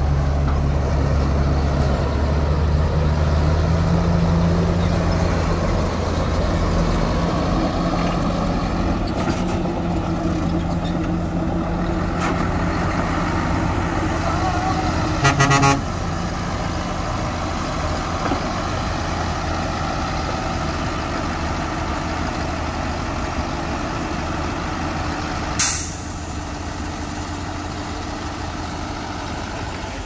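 Heavy diesel dump truck and earthmoving engines running with a steady drone that eases off after several seconds. About halfway there is a short loud rattle, and near the end comes a sharp air-brake hiss.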